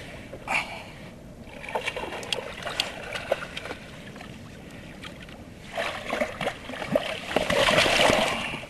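Water splashing and knocks against a kayak, with scattered knocks at first and a loud, busy spell of splashing over the last few seconds as the hooked yellowtail is brought to the boat and landed.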